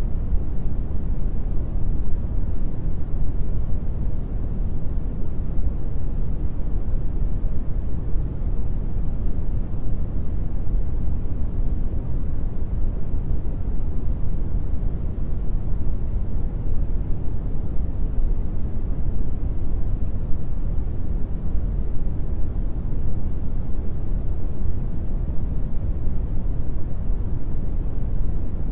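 Steady brown noise: an even, unbroken hiss, deep and strongest in the bass, thinning toward the treble.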